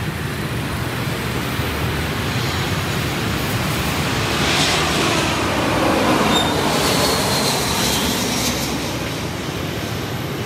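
Airbus A321-231 jet airliner passing low overhead on approach, its IAE V2500 engines making a rush that swells to its loudest about six seconds in, with a falling whine, then eases. Steady street traffic runs underneath.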